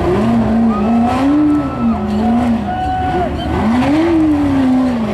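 Off-road race buggy's engine revving up and down in surges as it crawls over boulders, with a sharp rise in revs about three and a half seconds in that falls away slowly.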